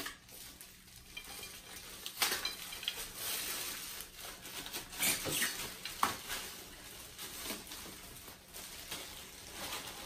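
Plastic packaging and bubble wrap crinkling and rustling as they are handled, with several sharp snaps along the way.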